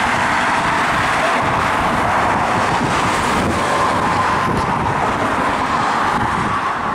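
Cars passing close by on the road: a steady rush of engine and tyre noise.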